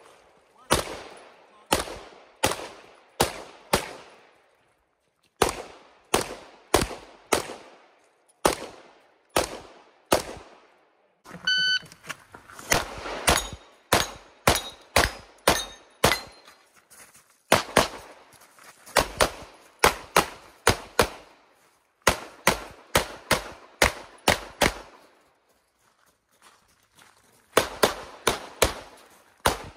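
Pistol shots fired in quick pairs and short rapid strings, each ringing out with a short echo, with brief pauses between strings. About eleven and a half seconds in, a short electronic beep, a shot timer's start signal, comes just before a new run of fire.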